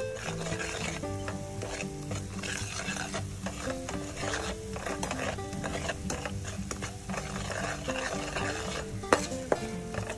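Metal ladle stirring and scraping an oily red sauce as it sizzles and fries in a stainless steel pot, with two sharper clinks of ladle on pot near the end.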